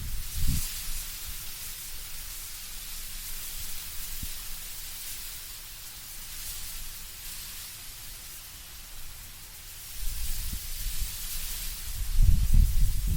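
Wind blowing through autumn trees with a steady hiss of rustling leaves. It swells into stronger gusts with a low rumble near the end.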